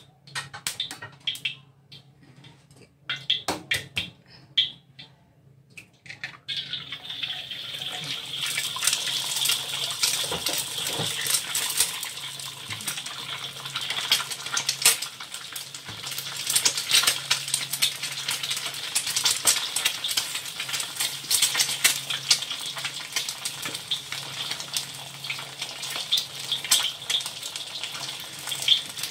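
Hot oil in a wok popping in sparse crackles, then about six seconds in an egg goes into the oil and it breaks into a loud, continuous sizzle and spatter that carries on, with a spatula scraping at the egg near the end.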